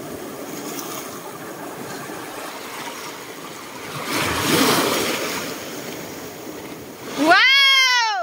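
Small sea waves lapping and washing over a pebble shore, swelling as a wave breaks about four seconds in. Near the end a loud high-pitched call rises and falls in pitch.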